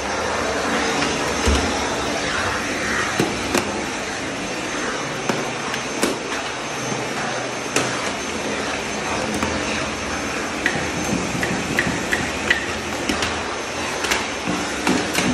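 Vacuum cleaner running steadily as its floor nozzle is pushed across a tiled floor, with scattered clicks and knocks throughout.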